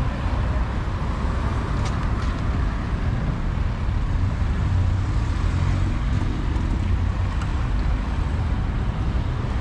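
Steady city road traffic: a continuous rumble of cars passing, heaviest in the low end.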